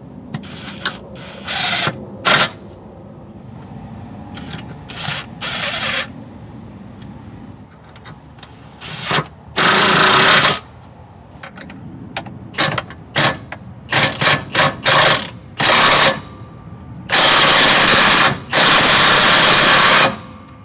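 Cordless impact wrench running down the transmission mount's fasteners: a string of short trigger blips, then several runs of a second or more near the end.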